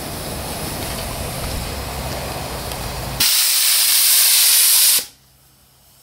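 Steady rushing noise with a low hum, then about three seconds in a sudden loud steam hiss as the boiler's pop-off safety valve lifts at its 100 psi setting; the hiss cuts off abruptly just under two seconds later.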